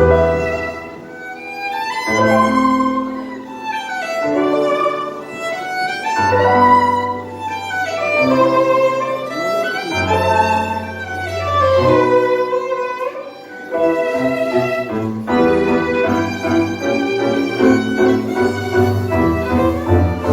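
Live tango music led by a violin, playing rising and falling melodic phrases over long held bass notes. About fourteen seconds in, the playing turns to a busier passage with a steady pulse.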